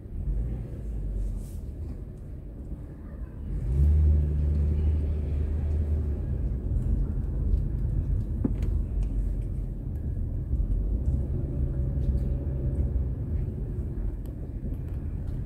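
A car's low engine and road rumble, heard from inside the cabin, growing louder about four seconds in.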